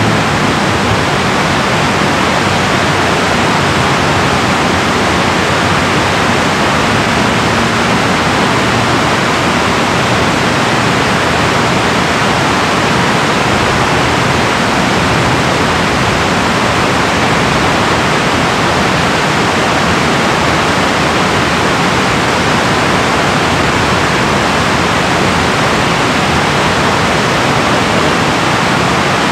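Water rushing over a low river dam: a steady, even rush of falling and churning water.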